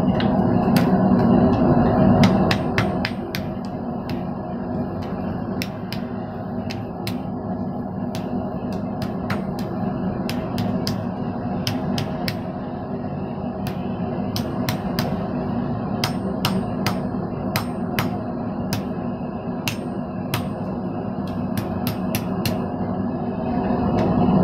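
Hand hammer striking a hot piece of thin sheet metal on an anvil: a steady run of sharp blows, about two a second, over a steady low hum.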